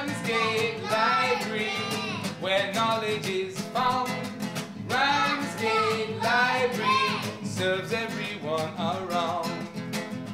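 A man sings a song to a strummed nylon-string classical guitar, the voice moving from phrase to phrase over the steady chords.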